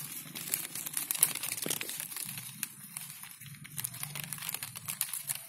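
Water apple leaves rustling and crinkling close up as a hand handles the branches, with small clicks and snaps as flower buds are picked off to thin the clusters.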